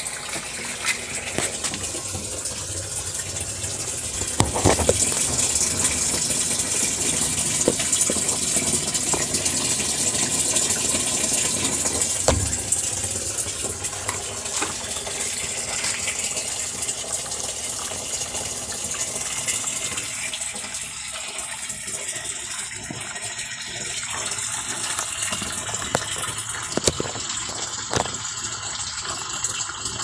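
Water gushing steadily into the tub of an LG top-load automatic washing machine during its fill stage before the wash starts, with a few short knocks.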